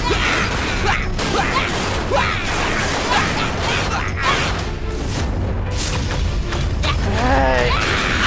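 Cartoon fight sound effects of giant robots grappling: repeated sharp metallic clanks and swishes, about one a second, over a steady background music score. Near the end a drawn-out, pitch-bending vocal cry comes in.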